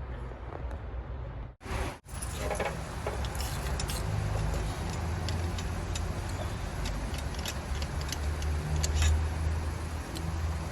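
Scattered light metallic clicks and clinks of hand tools working on engine parts, over a steady low hum, with a brief cut to silence about a second and a half in.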